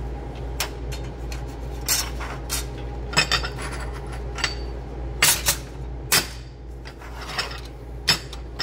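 Metal plates and a copper backing piece being set and shifted on a steel welding table: a string of irregular sharp clinks and knocks over a steady low hum.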